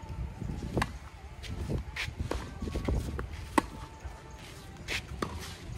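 Tennis rally: rackets striking the ball and the ball bouncing on the court, a series of sharp hits roughly a second apart, with shoes shuffling on the court between shots.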